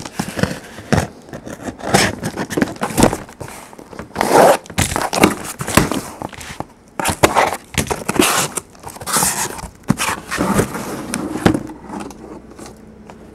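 Cardboard boxes of trading cards being handled and slid across a tabletop: an irregular run of scrapes, rustles and knocks.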